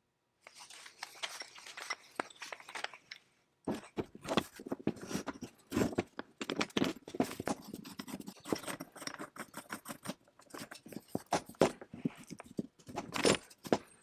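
Rusty antique Lowentraut brace-wrench multi-tool handled and worked by hand on a wooden workbench: irregular metal clicks, clinks and scrapes as its toothed adjusting wheel and jaws are moved and set down on the wood. There is a short pause about three seconds in.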